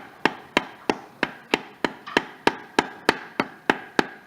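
Rubber mallet striking a metal pipe sleeve to drive a new torque converter seal into a Porsche 987 Boxster's Tiptronic transmission: fourteen even taps, about three a second, each with a short metallic ring.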